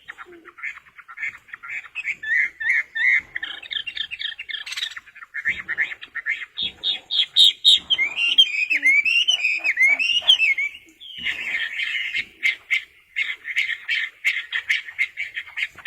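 A songbird singing a long, varied run of rapid chirps, chattering notes and quick up-and-down whistles, with short breaks about 5 and 11 seconds in.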